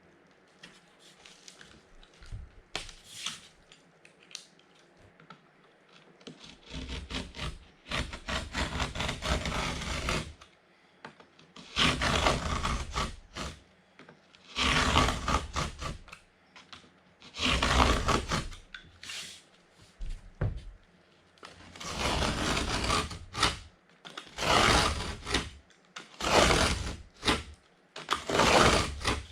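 Utility knife scoring Durock cement board: a series of about eight rasping scraping strokes, each one to three seconds long, starting about seven seconds in.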